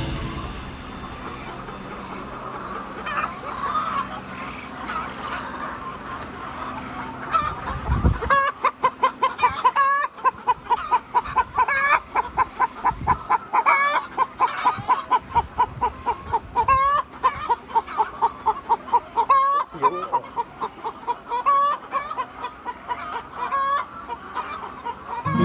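Chickens clucking, quieter and mixed at first. From about eight seconds in comes a fast, continuous string of short calls, several a second.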